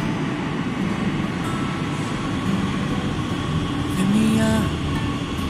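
A Madrid Metro Series 8000 train running into an underground station, a steady rumble of wheels and cars passing along the platform. About four seconds in there is a brief louder humming tone.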